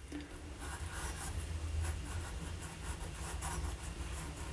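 Parker 61 fountain pen's medium nib scratching lightly across paper in short, irregular strokes as cursive letters are written.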